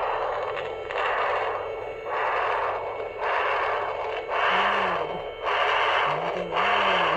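Boa constrictor's heartbeat, amplified and heard as a regular whooshing pulse about once a second; the vet calls the pulse very good.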